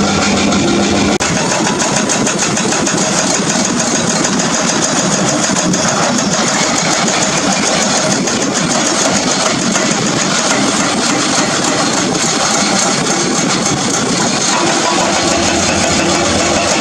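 Excavator-mounted hydraulic breaker hammering limestone in a fast, steady train of blows, over the excavator's engine running.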